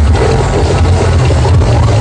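Loud music blasting from large sound-system rigs, with a heavy, continuous bass. Several rigs are playing against each other in a sound battle, so the music is a jumble of overlapping tracks.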